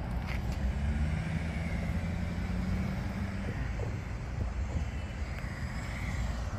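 A road vehicle passing: a steady low rumble of engine and tyres.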